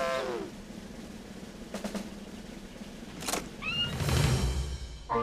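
End of a cartoon elephant's trumpet call, sliding down in pitch. Then cartoon sound effects follow: a few knocks, a short rising squeak, and a low rumble about four seconds in.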